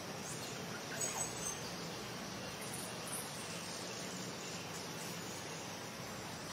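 Steady insect hiss of forest ambience, with a few short, high chirps about a second in.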